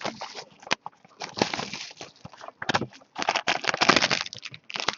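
A sealed trading card box being torn open and handled: irregular bursts of tearing, crinkling and scraping with sharp clicks, busiest in the second half.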